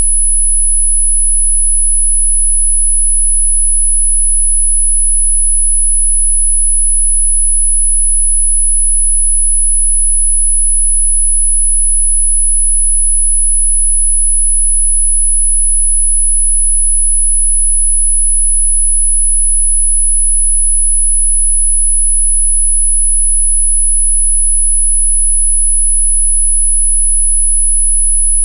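A single electronically generated sine tone, high-pitched and held perfectly steady without a break, played as a 'healing frequency' track.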